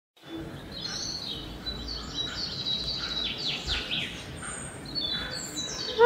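Alexandrine parakeets, an adult and its chick, giving a rapid string of high, thin chirps that sweep quickly downward, busiest in the middle seconds.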